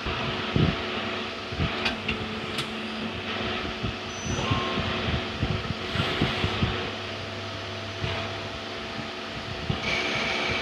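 CNC lathe running: a steady motor hum with irregular low knocks and stretches of hiss throughout.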